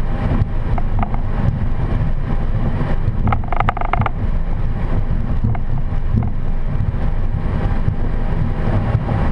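Steady low rumble of a Boeing 737 cockpit during taxi: the engines at idle and airflow noise. A few faint clicks, and a brief rattle a little past three seconds in.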